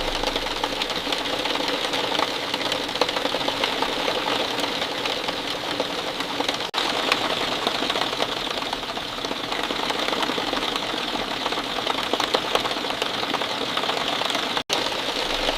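Steady rain falling, a dense patter of countless small drops, with a brief dropout about 7 s in and another near the end.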